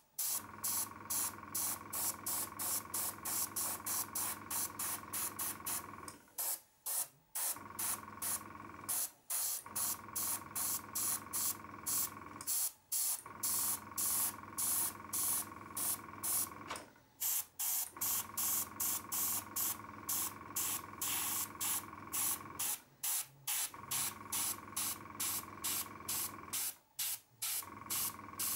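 Airbrush spraying paint: a high hiss that pulses several times a second, with brief pauses every few seconds, over a steady hum.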